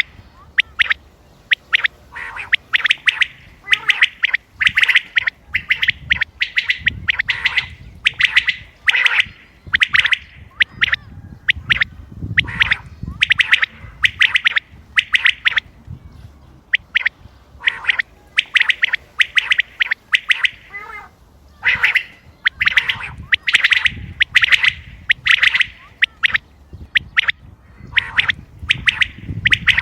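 Common quail calling over and over: short bursts of sharp, clipped notes, grouped in quick clusters about once a second and sometimes overlapping.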